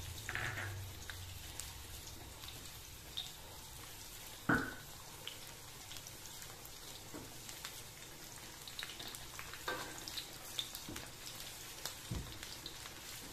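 Chopped garlic sizzling in hot oil in a wok as it is stirred with a spatula, a steady hiss with fine crackles. A few sharp knocks break in, the loudest about four and a half seconds in.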